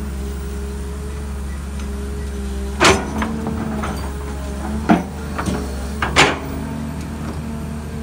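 Hydraulic excavator's diesel engine running steadily as it digs, with three loud sharp knocks from the bucket working the soil, about three, five and six seconds in.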